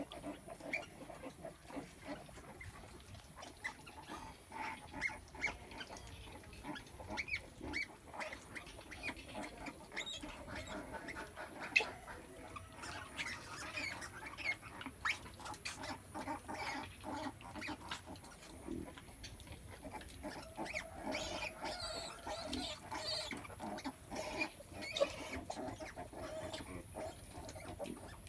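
Pigs calling: many short, high squeaks with some lower grunts. A sharp click comes a little before halfway.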